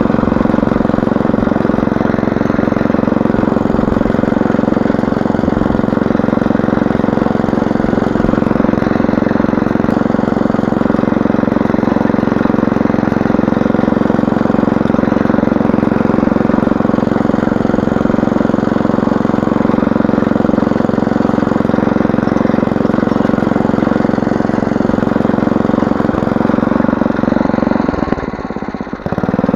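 Small petrol engine of a walk-behind motor hoe running steadily under load as its tines cultivate the soil, dipping briefly near the end.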